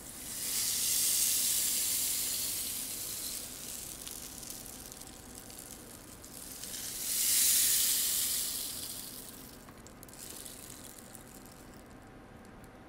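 Long wooden rainstick turned over twice: each turn gives a hiss of falling grains that swells and fades over about three seconds, the second beginning about seven seconds in.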